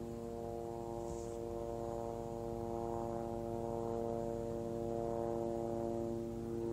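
A steady hum with a stack of even overtones, rising slightly in level about three seconds in.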